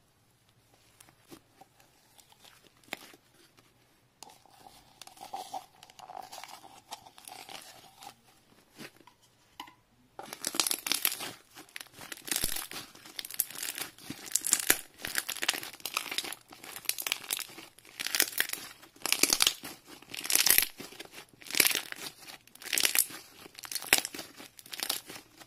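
Soufflé slime being stretched and squeezed by hand: sticky crackles and small air-bubble pops, faint at first, then from about ten seconds in a loud crackling squish roughly once a second as it is kneaded.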